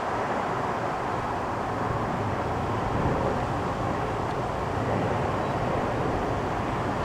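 Airbus A350-941 airliner passing overhead on approach, its two Rolls-Royce Trent XWB turbofans making a steady, even jet rumble.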